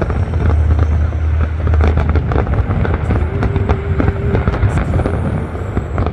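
Large fireworks display: many shells bursting and crackling in quick succession, with a steady low rumble underneath.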